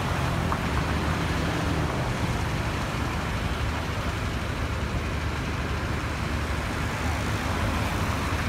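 Steady road traffic noise, with a car driving past on the street.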